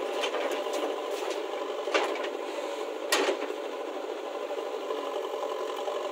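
Diesel engine of a JCB backhoe loader running steadily while loading soil into a tractor trolley. A patter of knocks comes in the first second as the bucket tips its soil, and two sharp knocks come about two and three seconds in.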